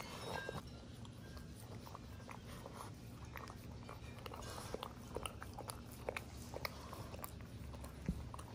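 Boston Terrier chewing a lamb ear chew with the fur still on: irregular gnawing and crunching clicks.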